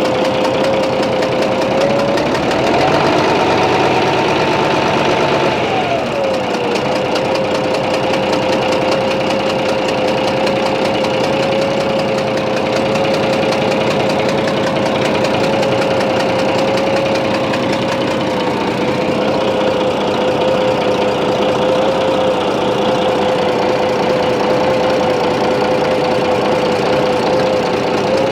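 A-01 diesel engine running steadily. It is revved up about two seconds in and drops back to idle about six seconds in. It carries a suspicious huffing noise that the owner traces to the third cylinder and its injector.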